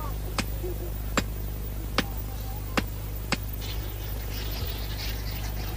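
Hand hammer tapping on a metal rod: five sharp, evenly spaced strikes about 0.8 s apart, stopping a little past halfway. A faint high hiss and a steady low hum follow.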